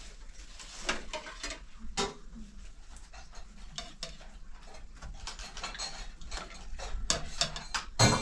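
A spoon and plates clinking and scraping on a large rice platter as cooked rice is dished out, in a run of light, irregular clicks and knocks that grows louder near the end.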